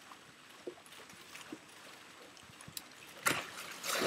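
Faint lapping of pool water, then near the end a sharp slap and a loud splash as someone jumps onto a surfboard floating on the pool and skids across the water.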